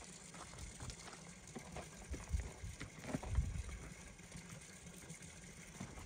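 Horse walking over muddy ground, its hooves giving faint, irregular soft thumps, with wind buffeting the microphone.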